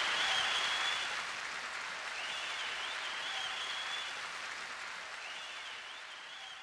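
Applause that fades out slowly, with a faint high warble recurring three times.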